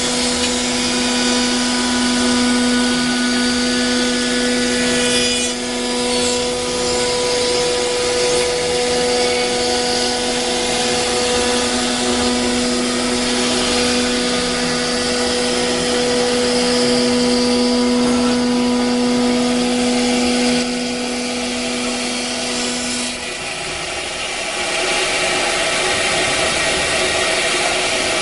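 CNC router's high-speed spindle running and cutting: a steady whine over dense cutting noise. The whine stops about 23 seconds in while the noise carries on.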